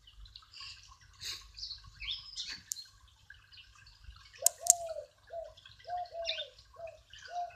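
Birds chirping and twittering, with a short, lower falling call repeated about twice a second from about halfway through. Two sharp clicks come just before the repeated calls start.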